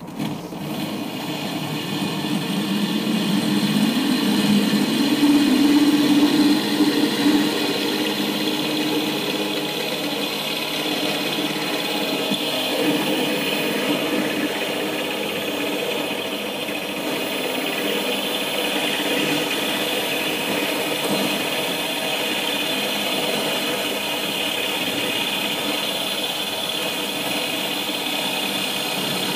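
Power drill running a 10 mm diamond core bit into window glass, dry without cooling water: a steady whine that starts at once, is loudest for the first several seconds, then holds level.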